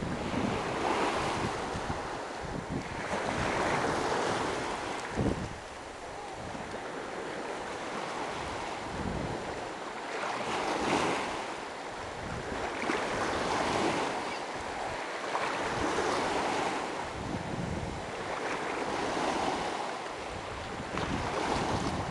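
Small sea waves breaking and washing up the shore right at the microphone, swelling and fading every two to three seconds. Wind buffets the microphone with a low, uneven rumble.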